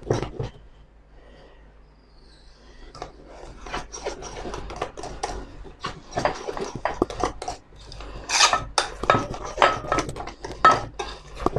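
A utensil scraping and clinking against a mixing bowl as flour is worked into a thick cake batter. After a quiet first couple of seconds come irregular scrapes and knocks, busiest and loudest in the second half.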